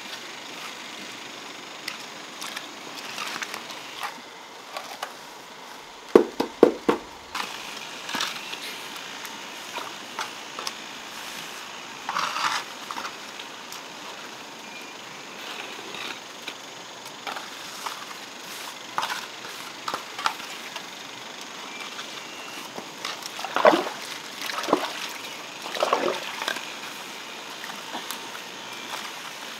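Pointed trowel and hand float working wet cement mortar: scattered wet scraping and smoothing strokes, with three quick knocks about six seconds in.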